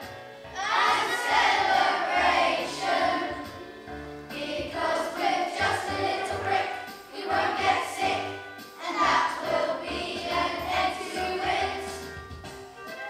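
A group of children singing together as a choir in phrases, with low musical accompaniment underneath.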